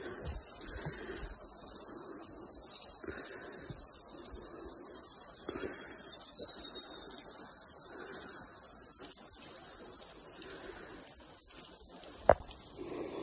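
A steady high-pitched insect chorus in the bush, over footsteps crunching through forest undergrowth about once a second, with one sharp snap near the end.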